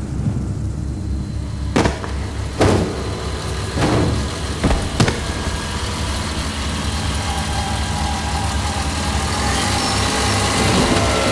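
An engine running steadily, with four sharp knocks in the first five seconds.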